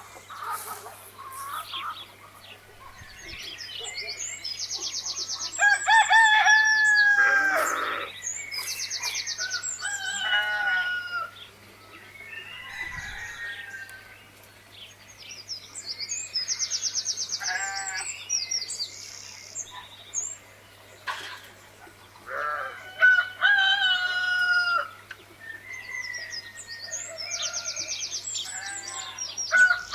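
Chickens calling: roosters crowing and clucking several times, with high chirping trills between the calls. A steady low hum runs underneath.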